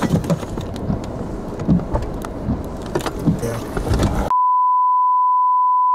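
Wind and rumble of a vehicle with scattered taps and knocks. About four seconds in, this cuts off abruptly and a loud, steady, single-pitch electronic beep tone takes over.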